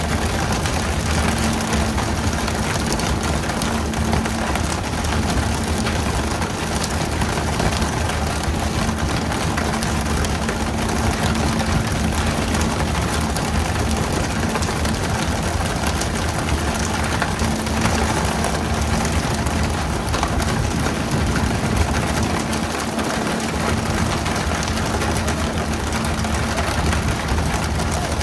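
Fishing boat's engine running steadily, a constant low drone under an even rushing hiss.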